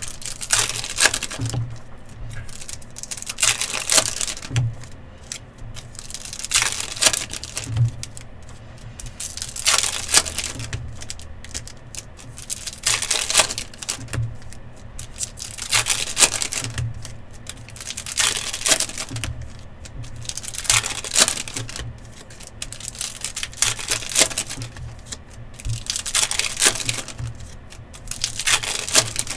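Trading card packs torn open one after another: a crinkling rip of the foil wrapper about every two to three seconds.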